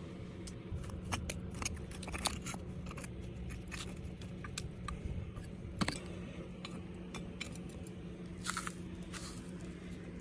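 Light scattered clicks, crunches and scrapes of a freshly cast aluminum piece being worked out of its mold, with a sharper knock about six seconds in, over a steady low hum.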